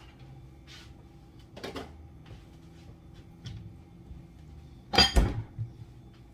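Kitchen handling sounds while getting shredded cheese out to weigh: a few light knocks, then one loud bang about five seconds in, of the kind a cupboard door makes shutting.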